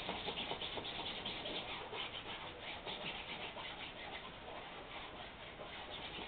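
A drawing tool scratching and rubbing against a large canvas in quick, irregular strokes.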